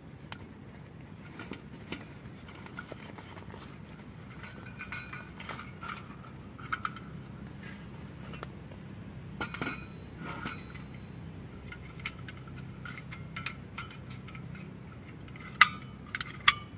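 Light metal clinks and rustling as a folding portable gas stove is slid out of a cloth drawstring pouch and its stainless-steel pot-support arms are swung open, with two sharp metallic clicks near the end.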